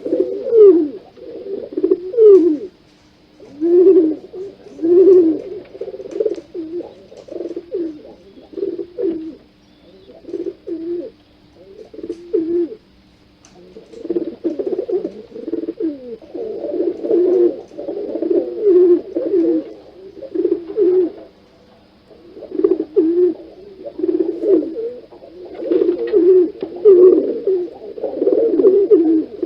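Pigeons cooing close by: repeated low, throaty coos in bouts of a few seconds, with short pauses between bouts.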